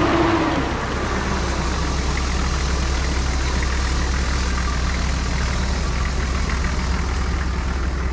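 An off-road 4x4's engine running steadily at low revs, with an even low drone.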